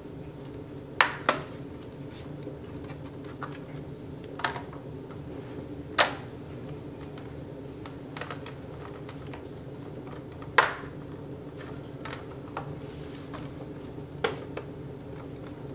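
Hard drive and plastic laptop parts being handled and fitted into the drive bay: sharp clicks and knocks, about six of them at irregular intervals, over a steady low hum.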